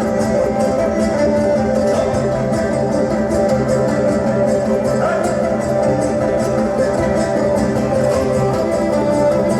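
A Kazakh ethno-folk ensemble playing instrumental music live, with plucked strings picked or strummed in quick regular strokes and a bowed string line.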